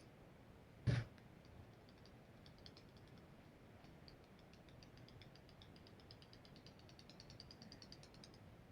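A single sharp knock about a second in, then faint, rapid light ticking: small metal engine parts being handled on a workbench.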